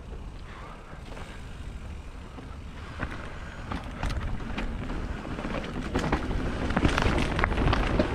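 Mountain bike riding over rough dirt singletrack: tyre noise with frequent rattles and knocks from the bike over roots and rocks, getting louder about halfway through, with wind rumbling on the microphone.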